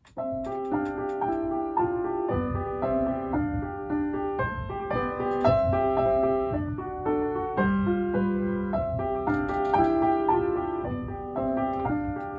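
Solo piano music: a steady flow of chords with a melody line over them.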